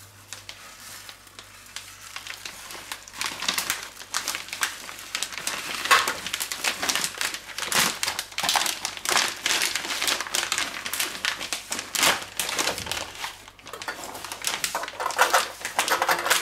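Clear plastic vacuum-sealer bag crinkling and rustling as a rub-coated pork sparerib is slid into it, in irregular rustles. Near the end the rustling thickens as the leftover spice is tipped into the bag from a stainless steel pan.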